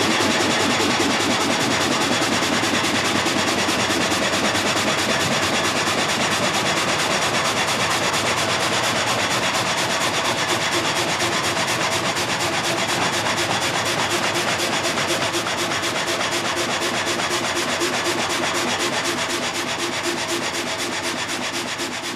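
Water-powered frame saw with several blades sawing through a log: a steady, rapid stroke of the blades rasping through the wood, a whining, chewing, stamping sound, easing a little near the end.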